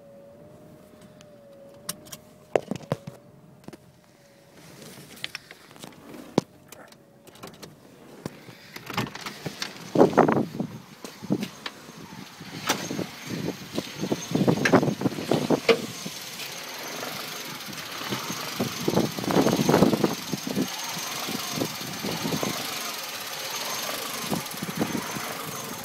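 A few sharp clicks, then a Peugeot 106 engine running unevenly, coming in irregular loud surges rather than a smooth idle, and growing steadier and louder toward the end: the rough idle the owner is showing.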